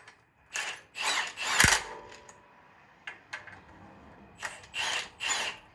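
Hand tools working on metal parts: six short scraping or rasping strokes, in two groups of three, with one sharp knock about a second and a half in and a few faint clicks between.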